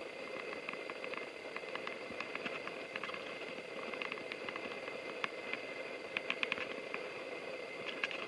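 Hitachi Class 803 electric train running slowly along the track: a steady hum with scattered light ticks, bunched in a quick run about six seconds in and again near the end.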